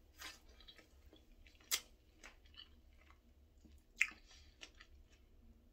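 A person biting into and chewing a fresh strawberry close to the microphone: faint wet chewing sounds, with two sharper bites about 2 and 4 seconds in.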